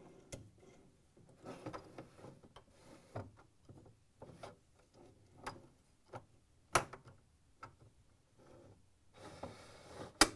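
Metal telescoping freezer drawer slide clicking and rattling as it is worked into its plastic side rail, with a sharp click about seven seconds in and another near the end, just after a brief sliding rasp.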